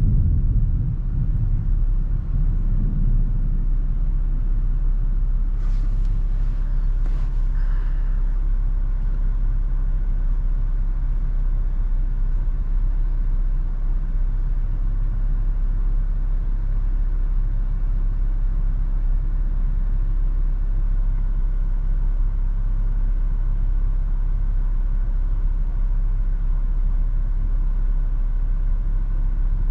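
Toyota FJ Cruiser driving in heavy wind: a steady low rumble of road and wind noise. A few brief hissy sounds come through about six to eight seconds in.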